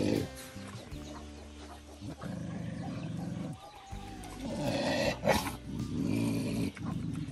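Dogs growling low over food in three long rumbling stretches, with one sharp, loud snap or bark about five seconds in.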